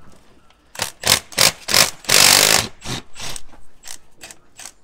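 Milwaukee Fuel cordless impact wrench hammering on a car's crankshaft pulley bolt to undo it, in a string of short trigger bursts, with the longest burst, about half a second, a little past the middle.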